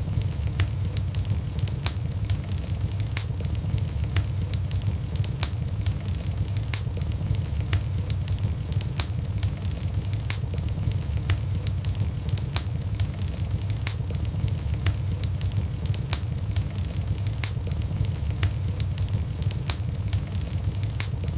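Wood fire burning in a fireplace: frequent sharp crackles and pops over a steady low rumble of the flames.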